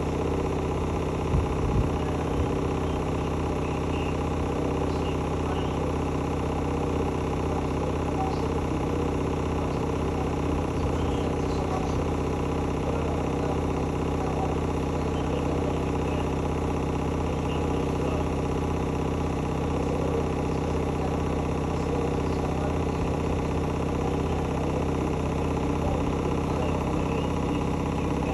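Washing machine running with a steady, even motor hum that holds one pitch, with a few light knocks about a second or two in.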